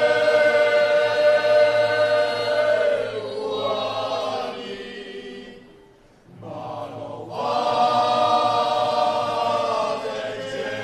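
Choir singing slow, long-held notes in two phrases, with a short break about six seconds in.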